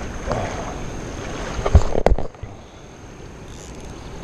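Wind buffeting the camera microphone over the hiss of a shallow river, with two sharp knocks about two seconds in; after the knocks the rumble drops away, leaving a quieter steady water hiss.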